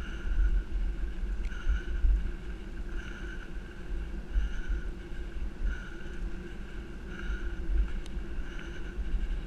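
Wind buffeting the microphone and a low rumble from a bicycle rolling fast along a dirt forest trail. A faint higher tone recurs about every second and a half.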